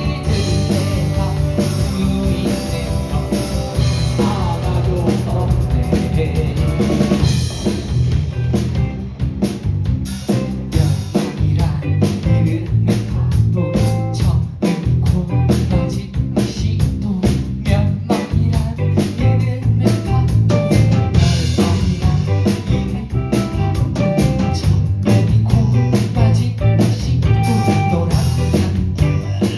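Live rock band playing an instrumental passage with no vocals: drum kit with snare and bass drum over bass and guitar. About eight seconds in the sustained wash thins out and the drum hits come to the front.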